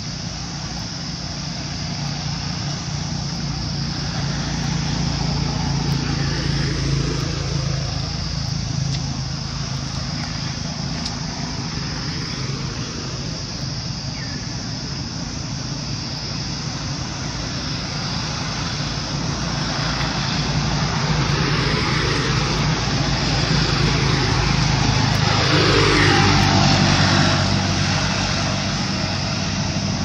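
Motor vehicle engine noise: a steady low hum that swells louder twice, once about a fifth of the way in and again for several seconds near the end, as with traffic passing.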